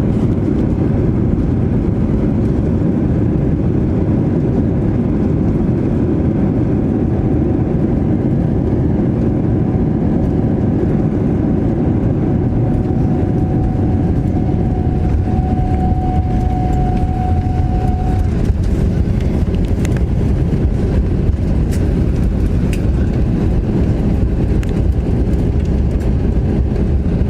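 Steady low rumble inside the cabin of an Airbus A321 airliner during its landing: its engines and the airflow heard through the fuselage. A faint whine rises slightly through the middle and stops partway, with a few light clicks near the end.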